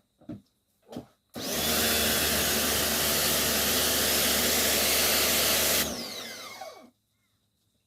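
Pressure washer running and spraying water for about four and a half seconds, a steady motor hum under a loud hiss of spray, after a few light clicks. When the trigger is released, the sound dies away with a falling whine over about a second.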